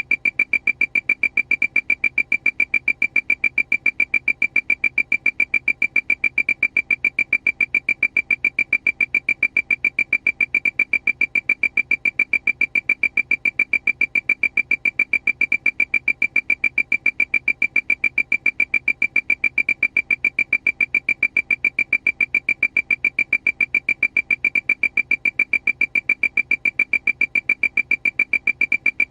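Aircraft alarm: a single high electronic beep repeating rapidly and evenly, several beeps a second, without change.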